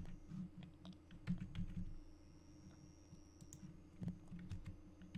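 Computer keyboard keys being pressed in irregular clicks, with dull low knocks from the keystrokes.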